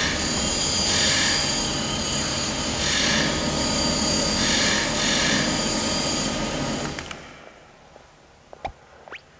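Loud workshop machinery running: a dense, steady mechanical din with surges of high hiss every one to two seconds. It fades out about seven seconds in, leaving a few faint clicks.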